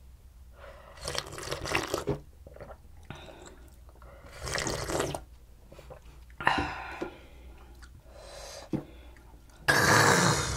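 Short slurping and sipping sounds of soup broth and soju, then near the end a loud raspy "khhh" exhale after a shot of soju.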